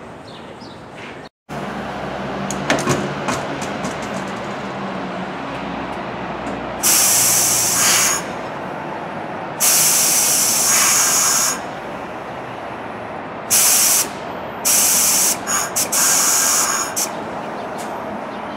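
Compressed air hissing from a standing NYC subway train's air brakes, in four loud bursts of a second or two each over a steady rumbling background.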